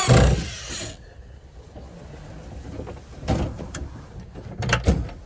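Cordless drill spinning up with a rising whine as it drives a screw into wood, stopping about a second in. A couple of short knocks follow later.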